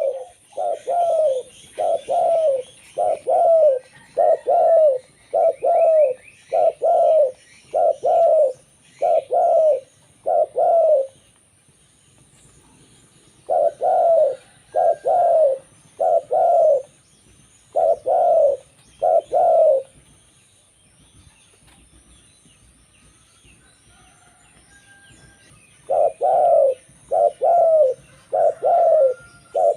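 Zebra dove (local perkutut) cooing: runs of short, evenly repeated coo notes. The song stops for a couple of seconds, resumes, falls silent for about six seconds and starts again near the end. Faint chirps of small birds sound in the background.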